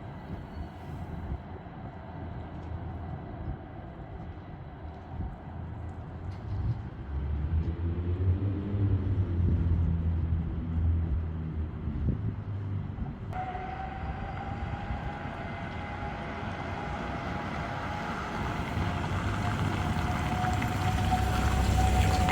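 City street traffic: a low vehicle rumble swells and fades as something heavy passes. About halfway through, a steady high tone sets in suddenly and grows louder toward the end.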